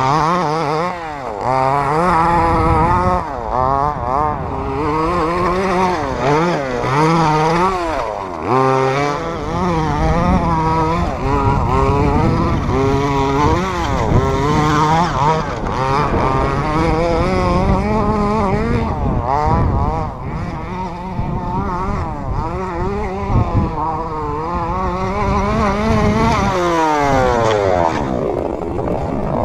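Redcat Rampage XB 1/5-scale RC buggy's two-stroke gas engine, fitted with its stock pipe, revving up and falling back over and over as it is driven, with one long climb in pitch about two-thirds of the way through.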